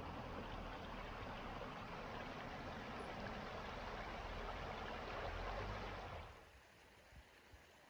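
Fast-flowing, shallow stony river rushing steadily over rocks and shingle. About six seconds in the rush falls away suddenly to a much quieter background.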